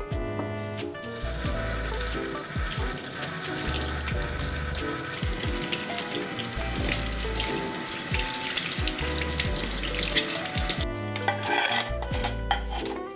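Kitchen tap turned on about a second in, running into a stainless steel sink as wooden utensils are rinsed under the stream. It is shut off about eleven seconds in, followed by a few light clinks as a ceramic plate is set into a wire drying rack.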